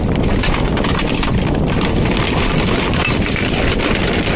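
Paper dog food bag rustling and crackling as litter is shaken out of it into a plastic wheelie bin, with many small knocks and clatters of cans and bottles dropping in.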